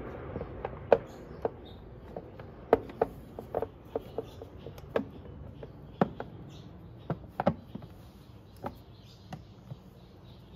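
Hard plastic air filter box cover on a Vespa GTS scooter knocking and clicking as it is handled and pressed into place against the engine: around twenty sharp, irregular knocks.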